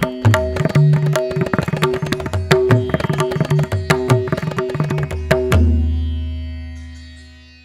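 Outro music: a fast tabla drum solo, rapid strokes with deep pitched bass tones, ending about five and a half seconds in on a stroke whose low tone rings out and fades away.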